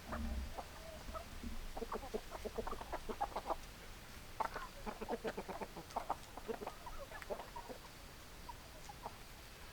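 Flock of hens clucking, many short calls overlapping, thinning out toward the end.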